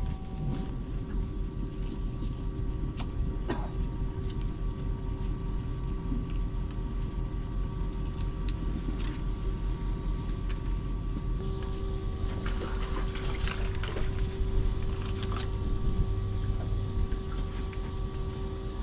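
A steady low mechanical hum carrying a few steady tones, with scattered light clicks and scrapes from a knife filleting fish on a plastic cooler lid.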